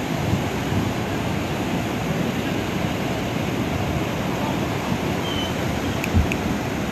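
Swollen river in flash flood: fast muddy floodwater rushing and churning in a steady, dense rumble. A short sharp knock about six seconds in.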